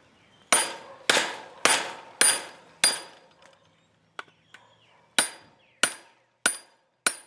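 Sharp metal-on-metal hammer blows, each with a brief ring, from work on fence staples while pulling them from fence posts. Five come about half a second apart, then after a short pause four more at the same pace.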